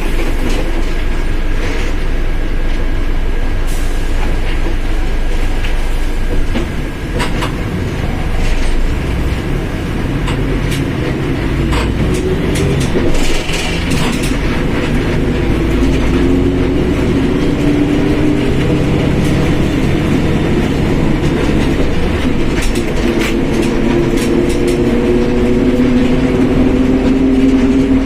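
Mercedes-Benz OF1721 BlueTec 5 bus under way, heard near its rear differential: steady drivetrain and road noise with scattered rattles and knocks. From about halfway through, a whine rises slowly in pitch and grows louder toward the end.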